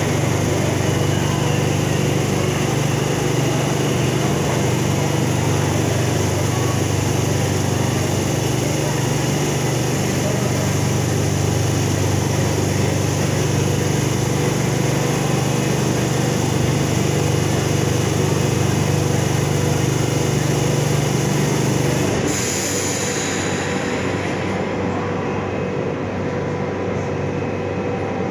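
Madrid Metro 7000-series electric train running in an underground station: a loud, steady hum with several steady tones from its electrical equipment. About three-quarters of the way through the sound changes abruptly to a quieter, thinner rumble.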